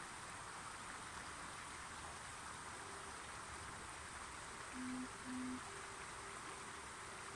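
Shallow stream flowing over stones, a steady low water noise. About five seconds in come two short low tones in quick succession.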